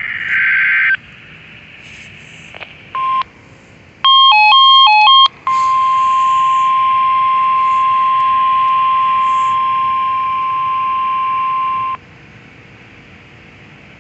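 Weather radio sounding an Emergency Alert System test alert. The buzzy two-tone SAME data burst ends about a second in, then comes a short beep and, about four seconds in, a loud rapid beeping warble between two pitches. The steady 1050 Hz weather-radio warning tone follows for about six and a half seconds and cuts off, leaving faint hiss.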